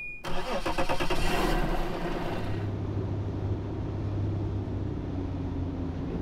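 Boat engine started with the ignition key: it fires up a moment in, loudest over the first couple of seconds, then settles into a steady hum as the boat gets underway.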